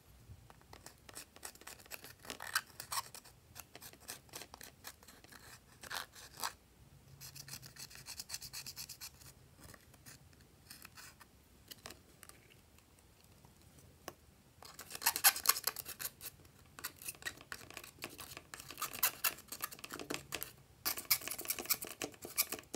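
Wooden-handled brush scraping and crumbling pressed eyeshadow out of the pans of a plastic palette: a run of quick scratches and clicks, with louder, denser scraping about 15 seconds in and again near the end.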